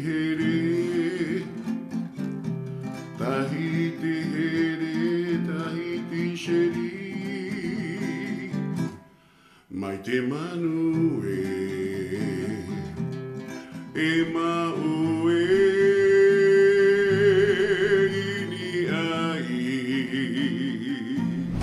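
A man singing a song to his own acoustic guitar accompaniment, with a short break about nine seconds in.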